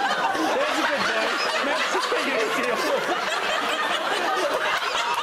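Studio audience laughing, many voices overlapping in sustained laughter.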